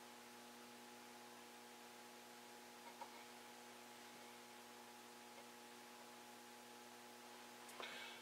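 Near silence with a faint, steady electrical hum and one small tick about three seconds in.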